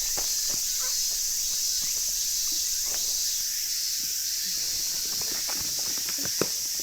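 A steady, high-pitched chorus of insects shrilling in summer woodland, with scattered footsteps and crackles in the undergrowth and one sharp click near the end.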